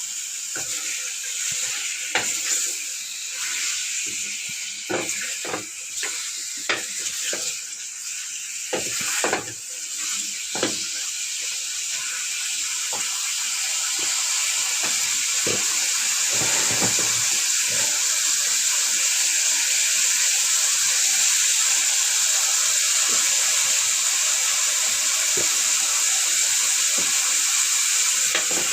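Chicken pieces sizzling in hot oil with browned onions, with a steady hiss that grows a little louder partway through. For the first ten seconds or so a spoon repeatedly knocks and scrapes against the pot as the meat is stirred.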